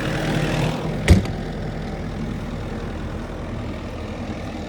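Bobcat E42 mini excavator's diesel engine idling steadily, with one sharp loud bang about a second in, typical of a body panel being shut.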